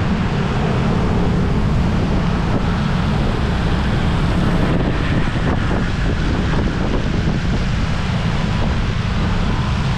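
Steady wind rush on the microphone of a motor scooter riding along a wet road, with the scooter's engine and the hiss of tyres on wet pavement under it.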